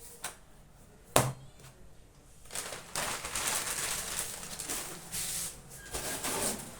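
A single sharp tap about a second in, then several seconds of uneven rustling and handling noise from the books and their packaging being handled.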